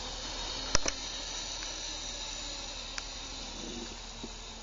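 A steady high hiss, with a sharp click a little under a second in and a fainter click near three seconds.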